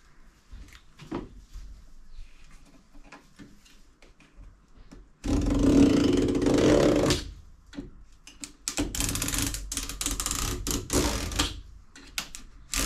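Sharp knife drawn along a straight edge, cutting through stacked twinwall (multiwall) polycarbonate sheets. After a few light clicks come long scraping strokes, the first about five seconds in and the next from about nine seconds, with a hollow ring from the fluted sheet.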